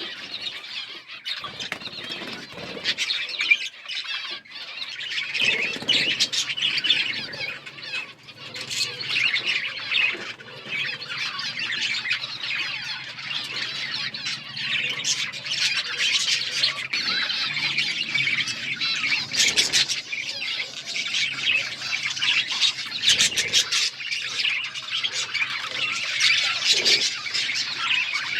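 Budgerigars chattering and chirping continuously in a busy, overlapping warble of high squawks and tweets.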